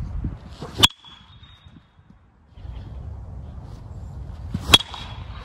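A Marucci Cat 9 Composite BBCOR baseball bat hitting a pitched baseball twice, about four seconds apart. Each hit is a sharp crack with a brief high ring.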